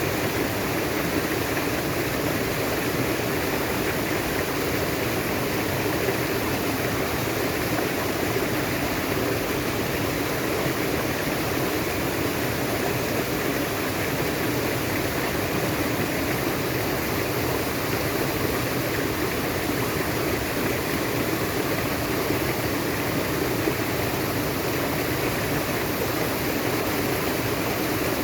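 Natural water flowing steadily over a stream bed: an even, unbroken rushing noise, fullest in the lower middle range.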